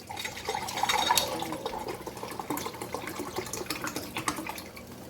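Bottled water being poured into a cooking pot of rice, a gurgling pour that is strongest about a second in and stops near the end.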